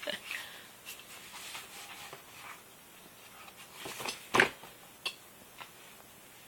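Hiccups: one short, sharp hic about four and a half seconds in, the loudest sound, with a weaker one at the very start and a few faint ticks.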